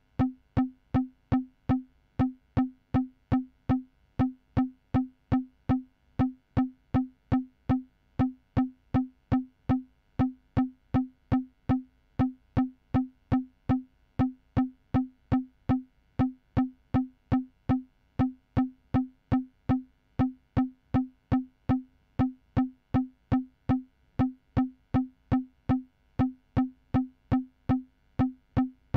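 Electronic pitched percussion: one short, wood-block-like synth note struck over and over in a steady pulse of about two hits a second, each hit dying away quickly.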